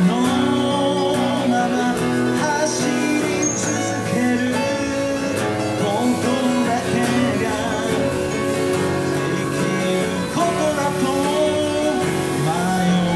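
Acoustic guitar strummed with a voice singing over it, a solo vocal-and-guitar performance of a Japanese pop-rock song.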